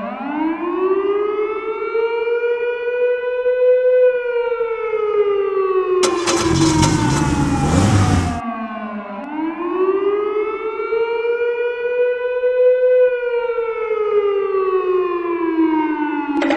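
Fire truck siren wailing in two slow cycles, each rising over about four seconds and then falling over about five. About six seconds in, a rushing hiss lasts a couple of seconds over the siren.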